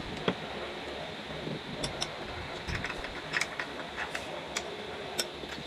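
A long metal spoon stirring ice cubes in a glass jar of coffee: irregular light clinks of spoon and ice against the glass, about seven or eight in all, over a steady low hum.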